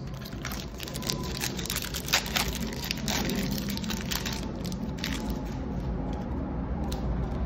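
Crinkling and tearing of a foil Magic: The Gathering Double Masters 2022 draft booster wrapper as it is ripped open, with dense crackles for a few seconds, then cards being handled. Underneath is a steady low rumble of street traffic.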